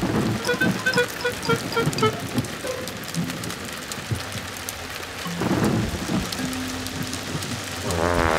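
Cartoon rain sound effect: heavy rain falling steadily, with a louder rumble of thunder about five and a half seconds in.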